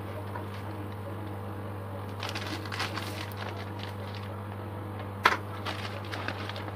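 Newspaper and plastic bag wrapping crinkling and rustling as it is cut and unwrapped with a knife, with one sharp knock about five seconds in as the knife is set down on the table. A steady low hum runs underneath.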